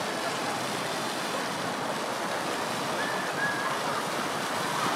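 Steady splashing and hiss of a public square's fountain jets, with faint distant voices of people on the square.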